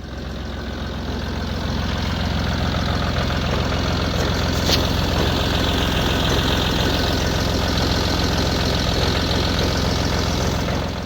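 A vehicle engine running steadily. It rises in level over the first couple of seconds and cuts off abruptly at the end.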